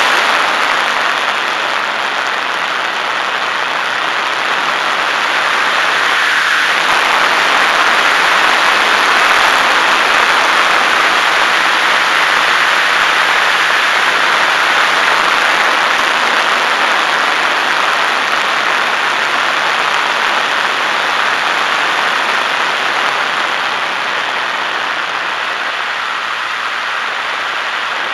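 Steady rush of wind and propeller noise from a HobbyZone Super Cub RC plane's electric motor in cruising flight, picked up by its onboard camera. It swells a little partway through and eases off slightly near the end.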